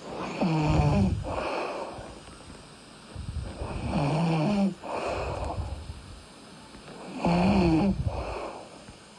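A sleeping person snoring in a steady rhythm: three loud, rattling snores about three and a half seconds apart, each followed by a softer breath.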